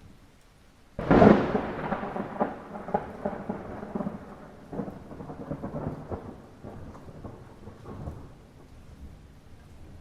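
A sudden close thunderclap about a second in, crackling and rumbling away over the next seven seconds or so, over a steady hiss of light rain.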